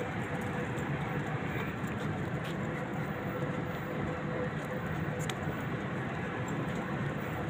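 Steady city background noise: a continuous low rumble like distant traffic, with a faint steady hum underneath and a single small click about five seconds in.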